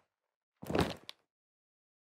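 A leather jacket is handled once: a single short, dull thud with rustle, about half a second long, starting a little over half a second in.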